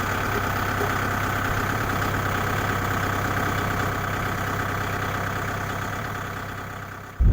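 Small engine running steadily at idle, with an even hum that fades away near the end.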